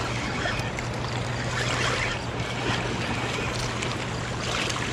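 Steady rushing of river water below a dam, with a steady low hum underneath.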